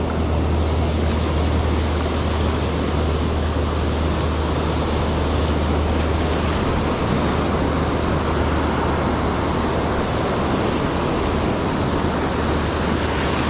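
Ocean surf washing steadily on the beach, with a low, steady rumble of wind on the microphone.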